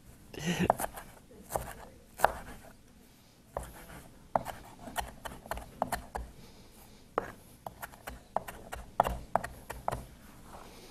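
Chef's knife chopping fresh Italian parsley on a wooden cutting board: irregular sharp knocks of the blade against the board, about two a second.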